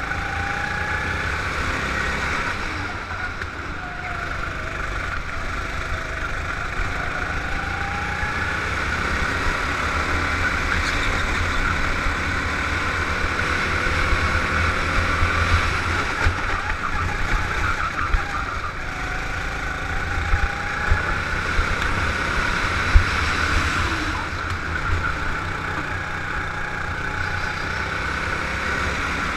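Go-kart engine running at speed around the track, its pitch rising and falling as the kart accelerates and slows for corners, over a heavy low rumble.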